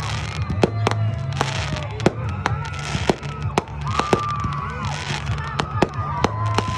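Fireworks going off: sharp bangs about twice a second over a steady low rumble, with long whistling tones between them.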